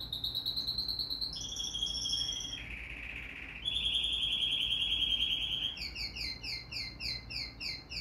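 A songbird singing a series of rapid trills that jump between pitches, then, from about six seconds in, a run of repeated downslurred notes, several a second.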